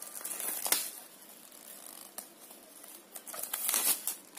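Clear plastic shrink wrap crinkling and tearing as it is peeled off a paperback book, with a louder stretch of crackling near the end.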